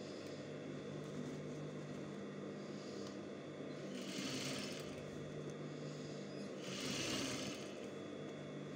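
Sewing machine running steadily, stitching a seam through fabric, with two brief rustles of the fabric being handled, about four and seven seconds in.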